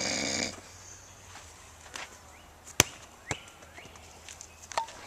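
A sleeping man's snore dies away in the first half second. Then come a few sharp knocks or taps, about four of them, the loudest near the middle.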